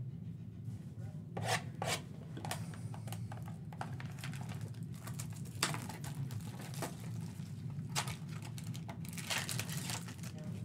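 Plastic wrap being torn off a box of trading cards and crumpled by hand, crinkling in irregular bursts.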